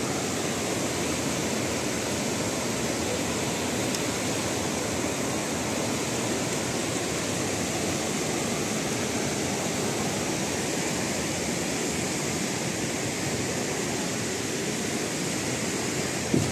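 Steady rush of a heavy, fast flow of water pouring over a dam's spillway weir and tumbling through a boulder-strewn riverbed, with a short knock near the end.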